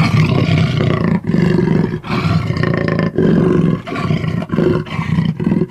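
Jaguar roaring in a run of about eight rough, back-to-back calls, each under a second long, with brief breaks between them.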